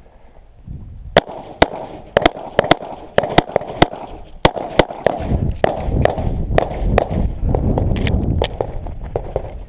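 A pistol firing a rapid string of about twenty shots, often in quick pairs, the first about a second in: a competitor shooting a USPSA course of fire.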